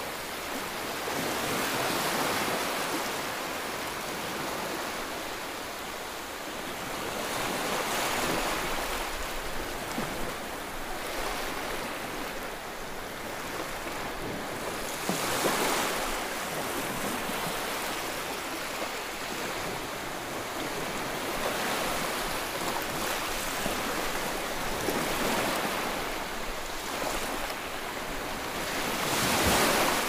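Ocean waves on a shore: a steady rush of surf that swells into a louder breaking wave every five to seven seconds.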